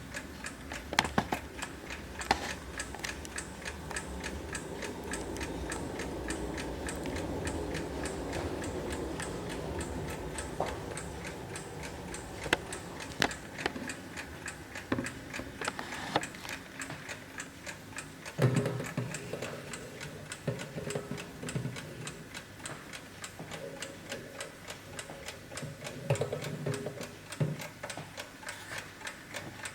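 Antique German brass carriage alarm clock ticking with a rapid, even beat, with a few louder knocks now and then.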